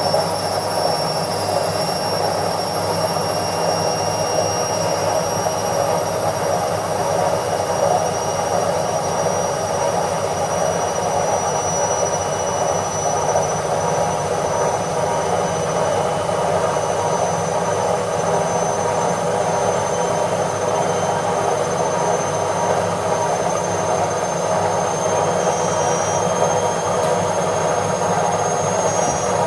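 Washing machine on its spin cycle: a steady rushing hum of the spinning drum, with a thin high whine that climbs slowly in pitch.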